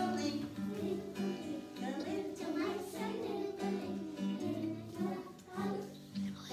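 Children singing a singing-game song over an instrumental accompaniment of repeating low plucked notes.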